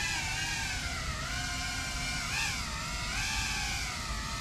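FPV drone's electric motors whining, the pitch rising and falling repeatedly as the throttle changes, with the highest swoop about halfway through.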